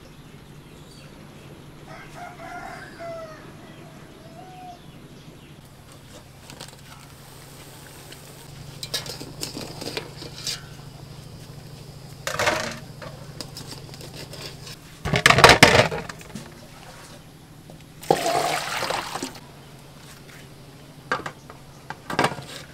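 A hen clucks softly a few times. Then, from the middle on, come short loud noisy bursts of splashing and clatter as eggs are handled in a pot of water and a metal steamer pot. The loudest burst is a little past the middle.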